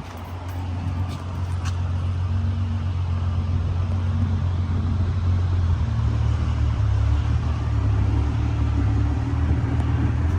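BMW 335's engine running with a deep, steady exhaust drone through an aftermarket downpipe, growing louder over the first two seconds, with a small change in pitch about six seconds in.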